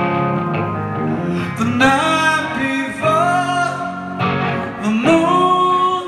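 Live rock band playing: electric guitar chords ringing, then a male voice singing phrases over the guitar from a little under two seconds in.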